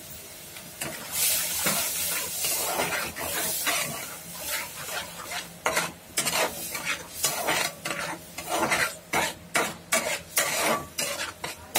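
Onion paste sizzling in hot oil in a metal kadhai while a metal spatula stirs and scrapes the pan in quick, irregular strokes. The stirring starts about a second in and grows busier toward the end.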